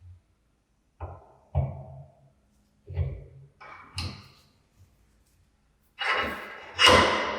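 Knocks and clunks of metal parts of an antique hand-cranked grinder being handled, a few seconds apart, then two louder clanks near the end that ring on and fade over about a second.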